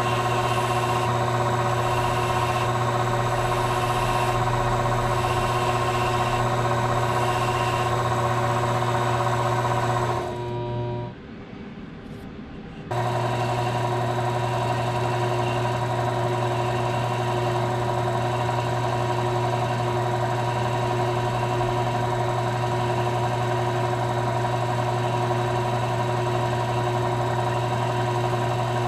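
Benchtop mini metal lathe running steadily, spinning a pool cue while its new leather tip is sanded and burnished: a steady motor whine with several constant tones. About ten seconds in it drops away sharply for about two seconds, then runs steadily again.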